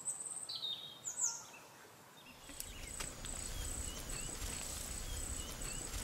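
Outdoor nature ambience. A few short bird calls come in the first second or so, then about two seconds in a steady high insect trill starts, in short repeated pulses, with faint chirps and a low background rumble.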